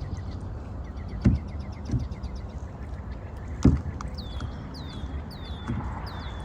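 Outdoor ambience: a steady low rumble, like wind on the microphone, with a couple of sharp thumps. In the second half a bird repeats short, high, downward-sliding call notes.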